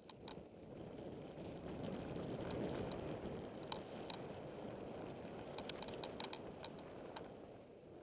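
Mountain bike tyres rolling fast over a loose gravel trail, heard from a camera on the bike or rider. It is a steady rumbling rush that builds over the first couple of seconds, with scattered sharp clicks and rattles from the bike and stones.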